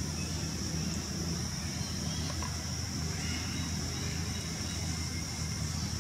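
Steady outdoor background noise: a low rumble under a constant high-pitched hiss, with nothing standing out.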